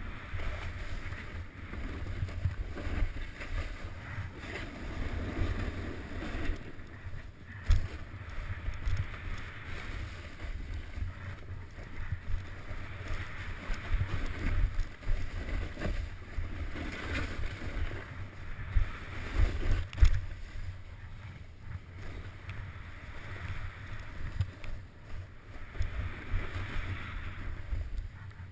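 Wind buffeting a GoPro's microphone while a rider slides down a snowy slope: the hiss and scrape of edges on snow swell and fade with each turn, over a constant low rumble. A few sharp knocks from bumps, the loudest about twenty seconds in.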